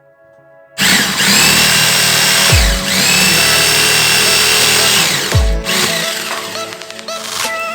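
An electric power tool, drill-like, starts about a second in and runs with a high, steady whine. Its speed dips briefly twice, as if it bites into the wood, and it trails off near the end. Background music with deep bass drops plays underneath.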